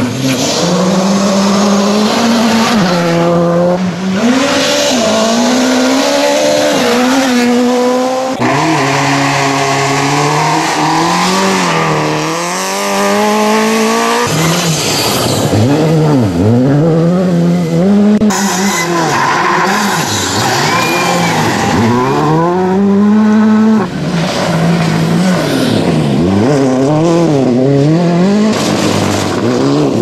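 A run of short clips of rally cars, among them a Škoda Fabia R5, powering through gravel corners. Each engine revs up and drops back again and again through gear changes and lifts off the throttle, over the hiss of tyres on loose gravel.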